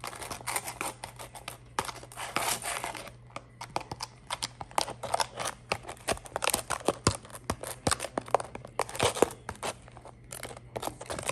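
A mixing utensil stirring shaving cream and glue in a mixing bowl: irregular wet scraping and squishing with many quick clicks against the bowl.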